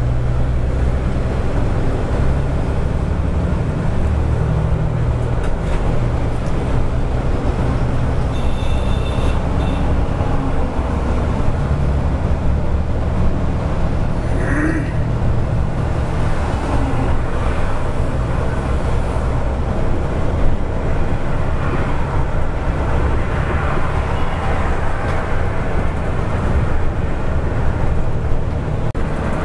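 Volvo 9600 multi-axle sleeper coach under way on the highway, heard from inside the cabin: a steady low diesel engine drone with tyre and road noise. A short high tone sounds about nine seconds in.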